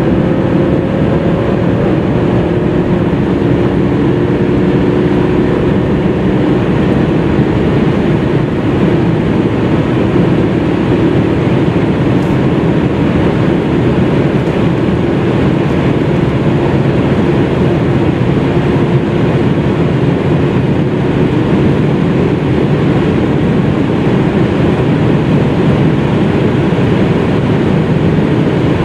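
2015 BMW 535d's three-litre twin-turbo inline-six diesel running hard under full acceleration from about 160 to 230 km/h, heard from inside the cabin with heavy wind and tyre noise. The automatic gearbox shifts up twice along the way, into sixth and then seventh.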